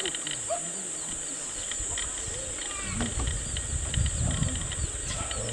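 Rural outdoor ambience: a steady high insect drone with many short, scattered bird chirps. A low rumbling noise comes in about three seconds in and lasts a couple of seconds.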